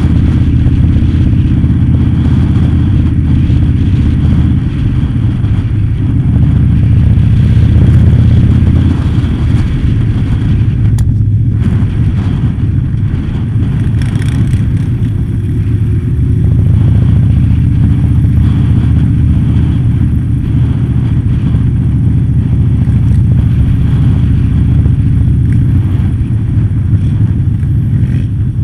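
Motorcycle engine running steadily at low riding speed, heard from on the bike itself, with the engines of other motorcycles in a slow-moving group ride around it. The engine note swells a little a few times.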